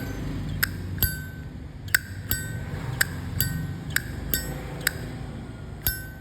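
Polished chrome Zippo lighter lid flicked open and snapped shut repeatedly, giving about ten sharp metallic clacks, each with a short bright ring. The lid action sounds good and crisp. A steady low rumble runs underneath.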